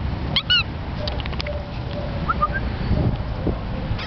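A dog gives one short, high-pitched yelp about half a second in, followed by a couple of faint short rising chirps in the middle. Low rumble from the handheld camera being moved about runs underneath.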